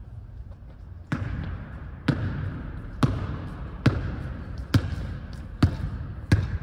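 A basketball dribbled on a hardwood gym floor: seven sharp bounces, roughly one a second, each ringing briefly in the big hall.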